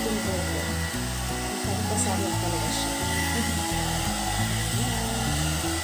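Hot air brush (one-step hair dryer and styler) running with a steady hiss of blown air, under background music with a changing bass line.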